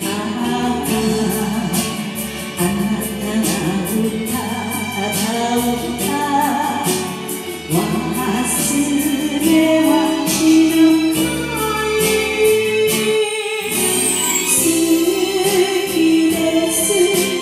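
A woman singing a Japanese enka song with instrumental backing.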